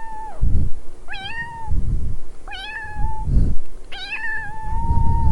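A domestic cat meowing over and over: three meows and the end of another, the last one drawn out longest. Low rumbling sounds come between the meows.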